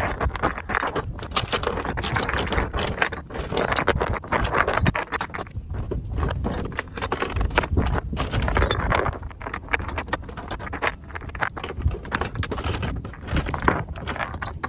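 Steel anchor chain clinking and rattling as it is hauled and laid out in rows on the deck: a dense, irregular clatter of links knocking against each other and the deck.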